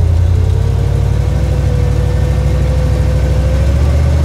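Turbocharged Suburban's engine running steadily under way, heard from inside the cab: a low rumble with a steady whine that rises slightly near the end.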